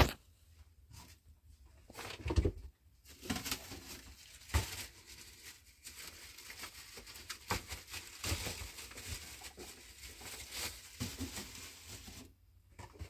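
Handling noises: plastic and cloth rustling and crinkling, with scattered knocks as household items are picked up and set down by a plastic washing basin.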